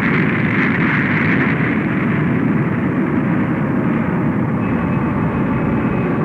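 Synthesized sci-fi sound effect: a loud, steady, noisy rumbling roar like a spacecraft engine under thrust. A faint high steady tone joins about four and a half seconds in.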